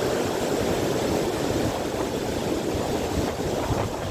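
Waterfall pouring down granite rocks: a steady, loud rush of water. Gusting wind buffets the microphone with low rumbles.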